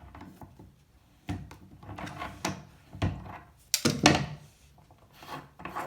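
A hand tool gripping and twisting the top cap of a push-pull bathtub stopper to unscrew it: irregular knocks, clicks and short scrapes, with the loudest clunks a little past the middle.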